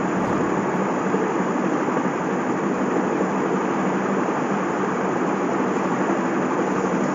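Steady, loud rumbling noise with a faint low hum and no distinct knocks or shots.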